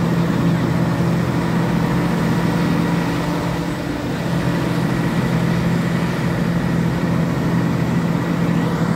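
Engine of a large tracked telehandler running steadily at a constant speed, with no revving.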